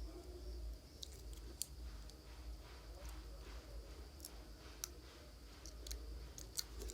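Faint, irregular light clicks and taps at uneven intervals, over a steady low electrical hum.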